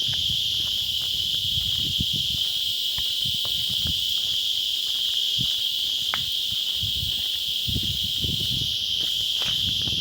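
A steady, high-pitched insect chorus, a continuous buzzing drone, with irregular low thuds and rumbles underneath.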